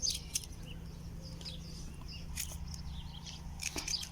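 Small birds chirping and twittering in quick, short calls, with a few faint clicks in between.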